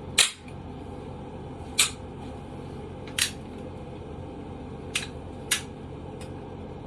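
Five sharp metallic clicks from a Glock Model 40 10mm pistol being handled just after it has been cleared, spaced about a second or more apart, the first the loudest.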